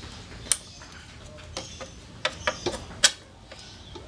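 Scattered sharp clicks and knocks of hand tools on a scooter's CVT parts during disassembly, about six at irregular intervals, the loudest about three seconds in.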